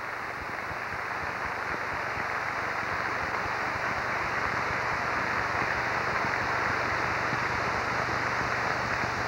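Large audience applauding in a hall, the clapping growing louder over the first several seconds and then easing slightly near the end.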